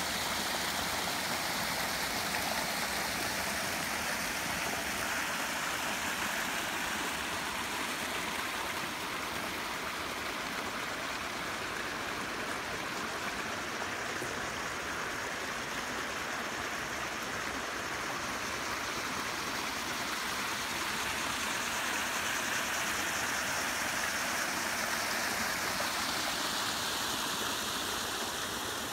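Water running and splashing steadily down a man-made rocky cascade of boulders into a pond.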